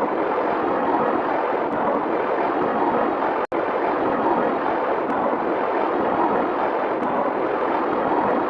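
A steady, even rushing noise sitting in the middle range, with no clear pitch or rhythm, broken by a split-second cut to silence about three and a half seconds in.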